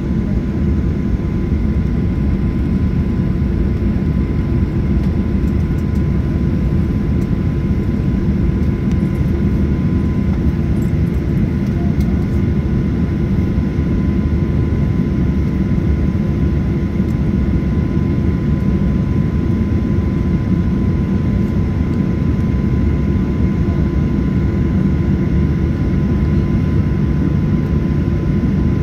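Jet airliner cabin noise: a steady low rumble of the engines and airflow, with a thin steady whine over it, neither rising nor falling.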